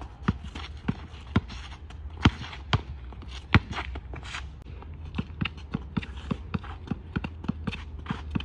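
A basketball being dribbled hard on an outdoor asphalt court, with the players' quick footsteps and shoe scuffs: a fast, irregular run of sharp bounces and taps, the loudest two about two and three and a half seconds in.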